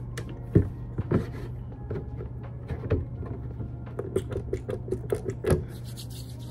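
Handling sounds at a desk over a steady low hum: a few dull knocks as things are picked up and set down, and about four seconds in a quick run of small clicks and rubs as a pump bottle of isopropyl alcohol is pressed and hands are rubbed.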